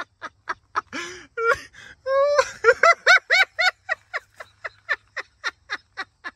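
A person laughing hard in a rapid run of high-pitched 'ha' pulses, about four a second, broken by a wheezing gasp for breath about a second in.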